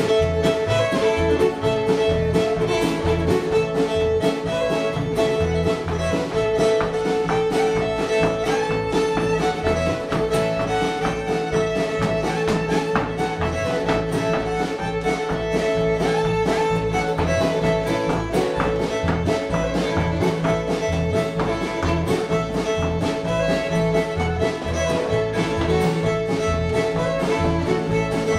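Live bluegrass band playing an instrumental: fiddle holding long notes over strummed acoustic guitar, upright bass and drums, with a quick steady beat of sharp taps.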